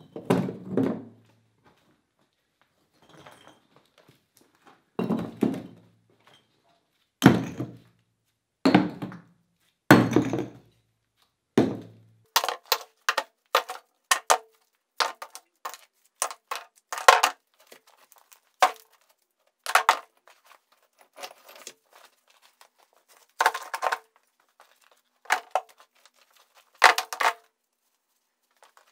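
Chunks of broken stone being loaded by hand into a wheelbarrow: rocks dropping in and knocking against each other. For about the first twelve seconds there are heavy thunks a second or two apart, then quicker, sharper clacks.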